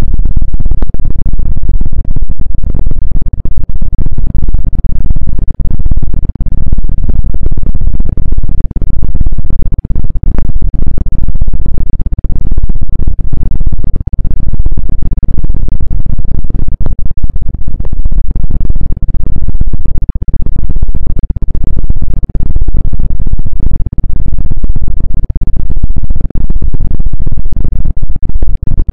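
Close-up ASMR rubbing and scratching on a microphone: a dense, loud, low rumble with faint scratchy ticks through it.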